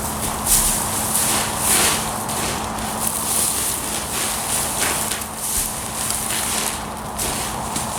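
Footsteps and the rustle and scrape of small straw bales being pulled and handled, over a steady low hum.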